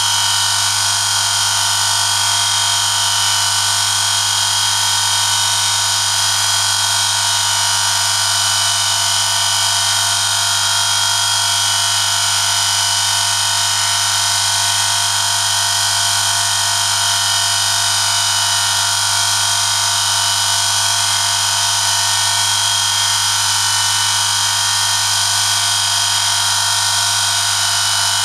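Oil friction-test rig running under a 1 kg load: an electric motor spins a shaft while a steel test sample is pressed against it in Amsoil European Car Formula 5W-30 oil. The sound is a steady motor hum under a loud, even hiss of metal rubbing on oiled metal, unchanging throughout.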